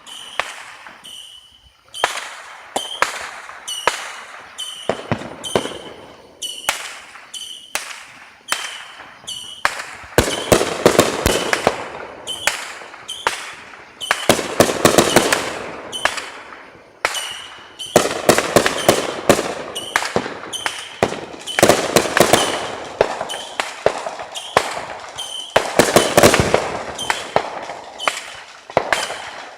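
Consumer fireworks going off in quick succession: many sharp bangs, with several stretches of dense, rapid crackling.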